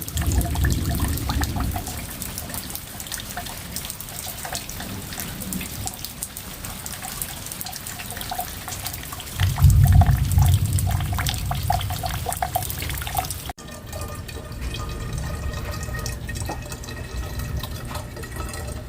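Water pouring and dripping, with many small drips and splashes. It cuts off suddenly about two-thirds through, giving way to a steadier water sound.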